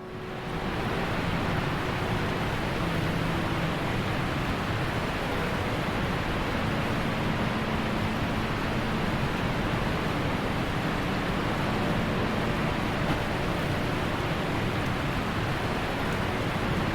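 Small mountain waterfall rushing in a steady, even stream of water noise.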